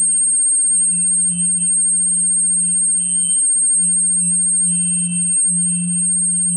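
Steady electronic-sounding drone: a low hum that swells and dips slightly, under a constant high-pitched whine, with faint higher tones flickering on and off.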